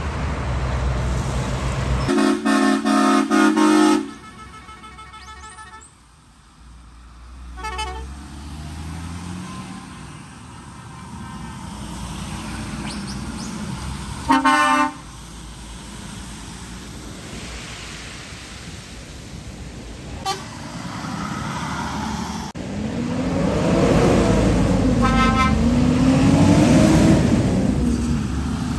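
Lorries driving off with diesel engines running and loud multi-tone air horns: a run of short toots about two seconds in, a brief toot a few seconds later, and another loud blast about halfway through. Near the end a lorry engine grows louder, its pitch rising and falling as it passes.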